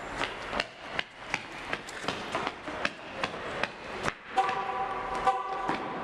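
Brisk footsteps on a concrete parking-garage floor, about three steps a second. A steady tone with several pitches comes in about four seconds in and continues over the steps.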